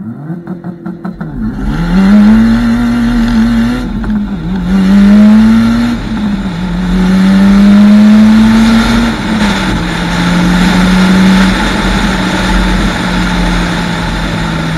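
Mitsubishi Lancer Evolution VIII's turbocharged four-cylinder, on a straight-through exhaust with no silencers, accelerating hard through the gears. The note climbs in each gear and drops at upshifts about four, six and nine seconds in, then settles to a steady cruise. Wind rush over the outside-mounted camera runs underneath.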